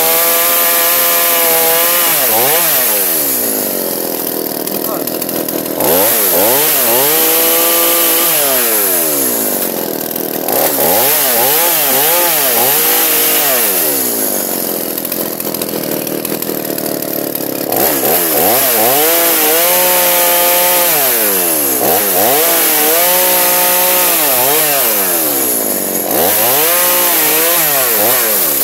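Chainsaw engine revved up and let back down again and again, about six times, its pitch rising and falling with each rev, cutting wood under load in between.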